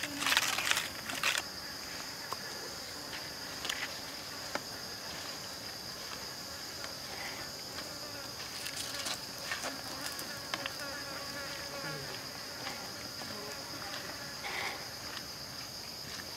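Steady high-pitched drone of forest insects. In the first second and a half, a loud rustling burst as bok choy goes into a hot, steaming pan, then scattered light scrapes and clicks of a spatula stirring the greens.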